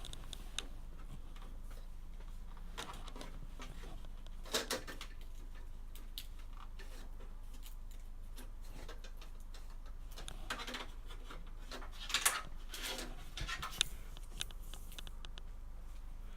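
Handling noises of cable and parts being fitted inside a PC case: brief rustles and light clicks, loudest about four seconds in and again around twelve to fourteen seconds, over a steady low hum.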